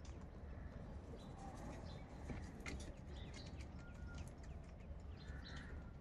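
House crows pecking at food in a plastic basin, making soft scattered clicks, while small birds chirp faintly in the background over a steady low hum. No loud cawing.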